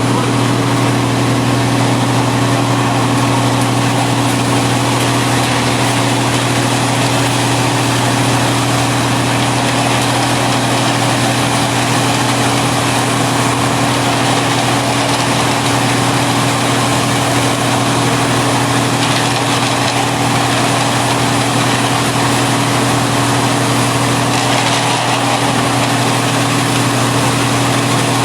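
An engine running steadily at idle, a constant low hum that never changes speed.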